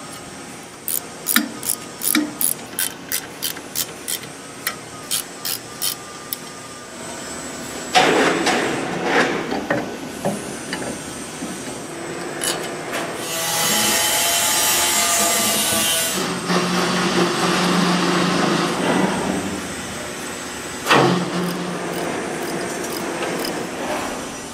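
Steel parts of an agitator being assembled by hand: a run of sharp metal clicks, about three a second, for the first several seconds. Then comes metal scraping and knocking, a burst of hissing noise lasting about three seconds, a steady low hum, and a single sharp knock near the end.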